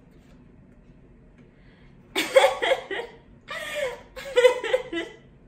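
A woman laughing, in three short bursts starting about two seconds in.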